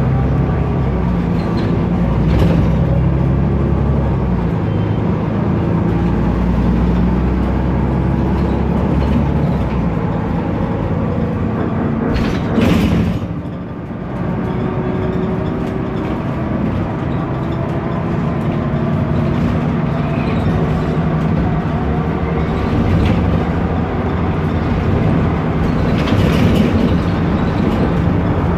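Cabin noise of a BMC Procity city bus on the move: its Cummins ISB turbo-diesel engine and road noise run steadily, with a brief loud noisy burst about halfway through.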